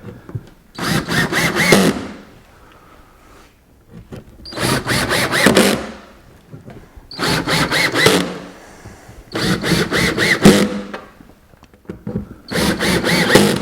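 Cordless drill driving pocket-hole screws into a wood cabinet face frame, five short runs of the motor with pauses between them, its pitch bending as each screw draws tight.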